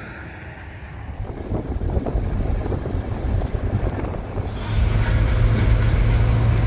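Car engine and road noise heard from inside the cabin while driving, a steady low hum that gets louder about two-thirds of the way in.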